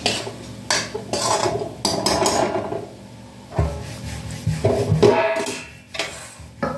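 Stainless steel pan clattering against a gas stove's burner grate, with metal tongs clinking: several sharp clanks as the pan is handled and lifted off.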